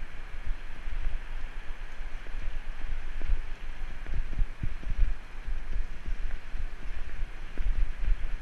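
Wind buffeting the microphone of a camera on a moving bicycle, a gusty low rumble over a steady hiss of riding and road noise.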